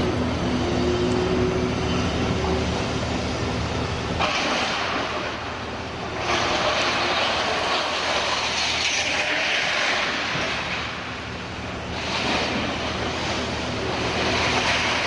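Liebherr 954 scrap handler at work: its diesel engine runs with a steady drone, then about four seconds in the sound changes abruptly to a harsher, noisy clatter as the orange-peel grapple digs into and grabs the pile of scrap metal.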